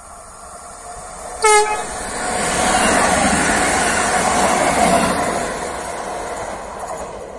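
Regional electric multiple unit passing at speed on electrified track: a short, loud horn toot about a second and a half in, then the rush of wheels on rail swelling as it goes by, loudest around three to five seconds in, and fading away near the end.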